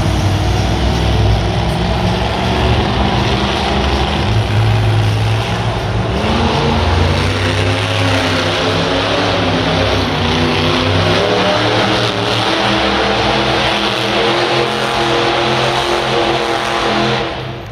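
Mega-Wrex monster truck's engine revving hard as the truck spins donuts on the arena dirt, its pitch rising and falling over and over. The engine drops away suddenly near the end.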